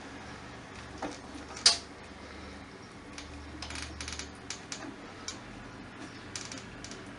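Scattered sharp clicks and small knocks of hands and tools handling the parts and wiring of an opened PC speaker, the loudest about a second and a half in, then a quicker run of clicks a little past the middle.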